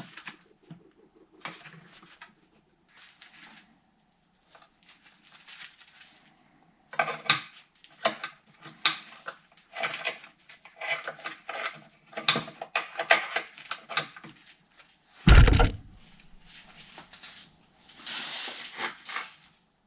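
Metal engine parts and hand tools clinking and clattering during reassembly work on a snowmobile engine, with one heavy thud about three quarters of the way through.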